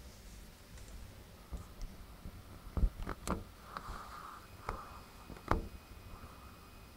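Several sharp clicks and knocks at uneven spacing, a few with a short ring after them, the loudest a little before the middle and about three quarters of the way through, over a faint steady background hiss.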